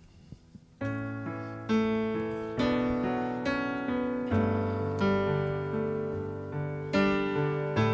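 Keyboard playing piano chords, one struck about every second and left to ring and fade, starting about a second in after a near-quiet moment.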